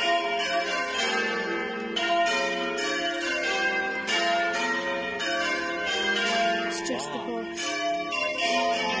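Church bells ringing, a steady run of overlapping struck strokes. A voice is heard briefly about seven seconds in.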